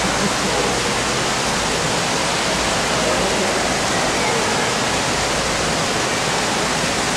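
Steady, loud rushing hiss like running or falling water, unchanging throughout, with faint voices beneath it.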